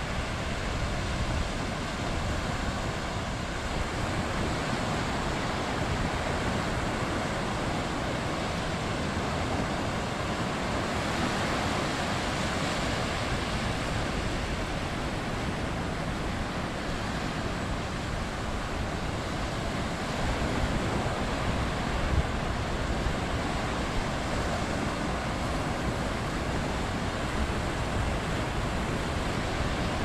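Small ocean waves breaking and washing up a flat sandy beach: a steady hiss of surf that swells a little a third of the way in and again past two-thirds.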